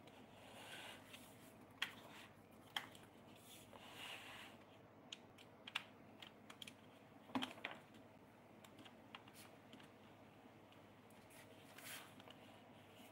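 Scattered light clicks and taps of fingers handling the plastic base of a small fish bowl, with a sharper knock about seven seconds in.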